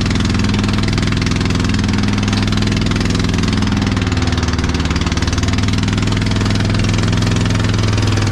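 Motorised outrigger boat (bangka) engine running steadily, a loud, even drone with no change in speed.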